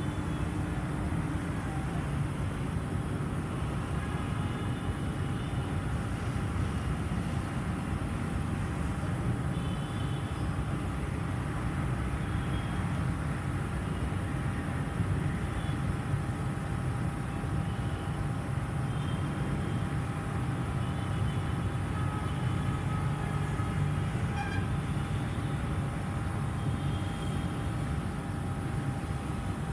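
LG air conditioner outdoor unit running steadily, its fan producing an even rushing hum with a faint constant whine over it.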